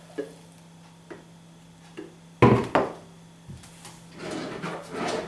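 Kitchen handling sounds: a few light clicks, then one sharp knock about two and a half seconds in, the loudest sound, followed by rustling near the end.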